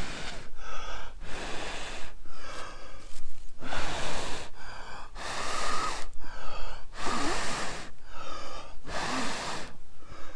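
A man blowing hard and steadily into a small wood-burning stove to revive dying embers in its feather-stick and fungus tinder, about five long blows with quick breaths drawn in between, the breath rushing close on the microphone.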